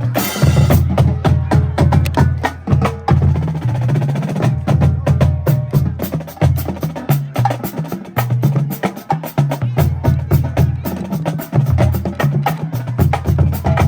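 Marching drumline playing a cadence: fast, dense snare strokes and rim clicks over low bass drums that step between several pitches.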